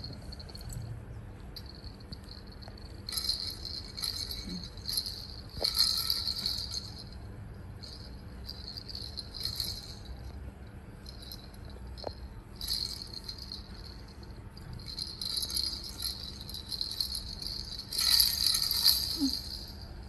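Plastic baby rattle, a ring of hollow perforated balls with bells inside, jingling in irregular bursts with short quiet gaps as a baby monkey picks it up, shakes and pushes it.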